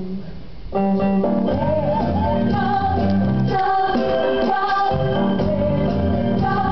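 Live stage music from a band with electric guitars, with singing over it. After a quieter opening moment the full band comes in loud just under a second in and carries on with a steady bass beat.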